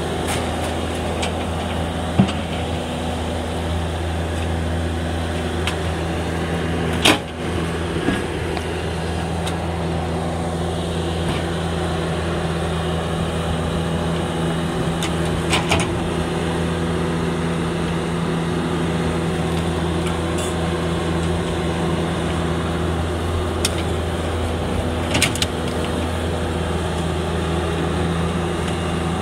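Bobcat skid-steer loader's diesel engine running steadily, with a few sharp knocks and clatters from its grapple bucket and the debris it handles, the loudest about seven seconds in.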